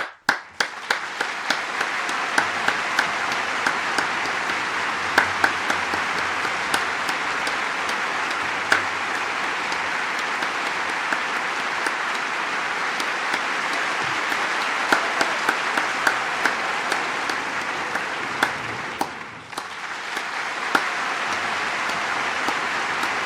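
Large crowd applauding: scattered claps build within the first second into dense, steady applause with individual sharp claps standing out. The applause dips for a moment about three-quarters of the way through, then comes straight back.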